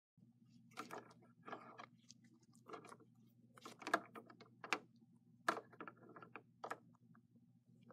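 Handling noise of plastic Littlest Pet Shop toy figures being moved by hand across a dry moss set: short, crunchy rustles and clicks, roughly one a second, over a low steady hum.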